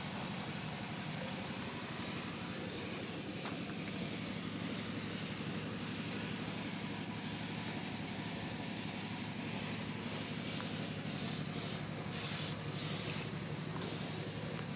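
Steady machinery noise: a motor or engine running continuously, a constant low hum under an even hiss.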